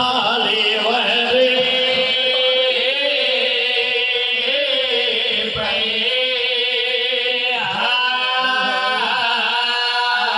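A man chanting mournful Muharram lament verses (zakiri) into a microphone, in long held notes sung in phrases of a second or two.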